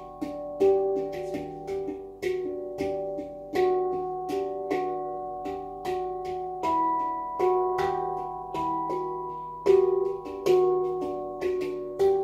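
Handpan tuned to an E Equinox scale, played with the fingers: a flowing run of struck notes, several a second, each ringing on and overlapping the next, with a few louder accented strokes.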